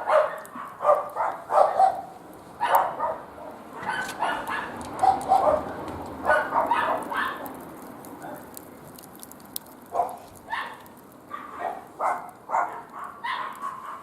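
A dog barking in short repeated bouts, louder in the first half and sparser later.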